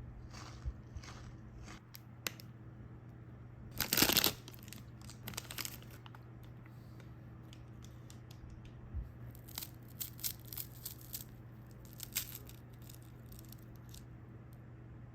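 Snack packaging being torn open with one loud rip about four seconds in, then crinkled in short bursts of crackles.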